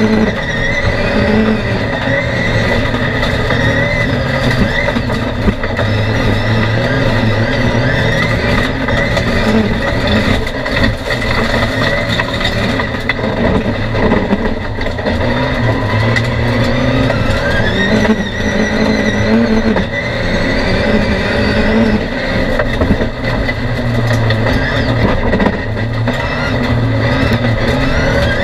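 Race car engine under full racing load, heard from inside the cockpit, its pitch climbing and dropping again and again as it is driven hard on a loose dirt track.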